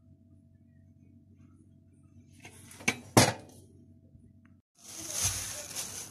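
Glass jars and kitchenware being handled: two sharp clinks about three seconds in, then a steady hiss from about five seconds in.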